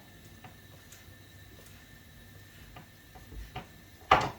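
Kitchen utensils and containers being handled while tea ingredients go into the pot: a few faint clicks and taps, then one sharp louder knock near the end.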